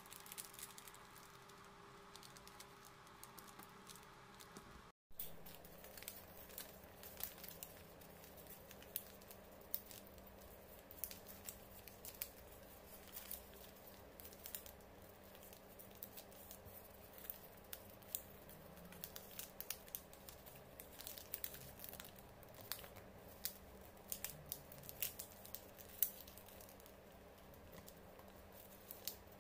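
Paper being folded and creased by hand: scattered light crinkles and taps over a faint steady hum, with a brief dropout about five seconds in.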